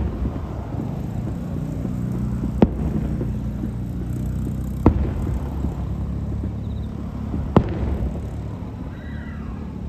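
Aerial fireworks shells bursting over a continuous low rumble of explosions, with three sharp bangs about two to three seconds apart.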